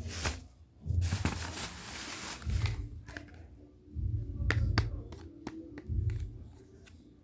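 Hands handling and opening small plastic packaging: rustling about a second in, then several sharp clicks, with low bumps from handling throughout.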